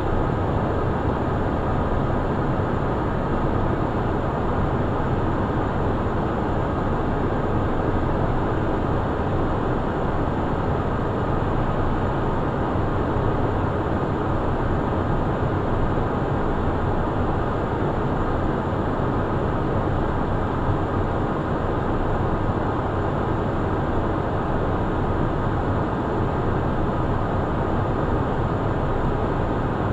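Steady in-flight cockpit noise of a Cessna Citation 501: its twin turbofan engines running and air rushing past, even and unchanging throughout.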